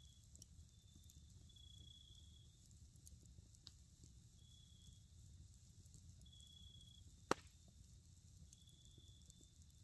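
Wood campfire crackling faintly, with one sharp pop about seven seconds in. Insects trill in repeated high-pitched stretches.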